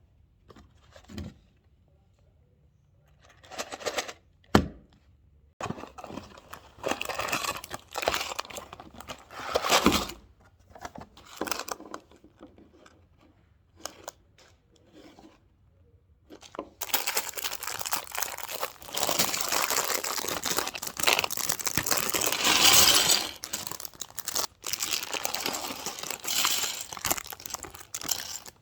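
Plastic and paper packaging being torn open and crinkled in short handling bursts, with one sharp click about four and a half seconds in. It gives way to a long, steady stretch of crinkling and rustling in the second half.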